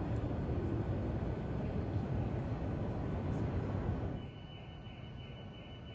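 Background noise of a large exhibition hall: a steady low rumble that drops abruptly about four seconds in to a quieter hiss with a faint steady high tone.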